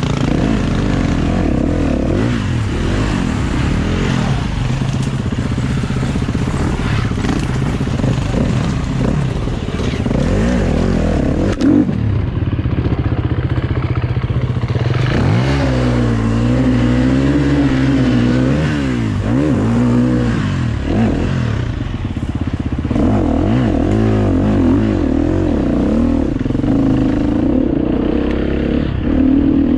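KTM EXC 250 F four-stroke single-cylinder enduro motorcycle engine being ridden hard off-road, its pitch rising and falling again and again as the throttle opens and closes.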